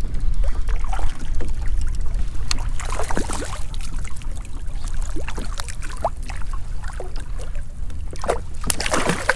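Water splashing and dribbling at the surface, with a burst of splashes about three seconds in and louder ones near the end, over a steady low rumble.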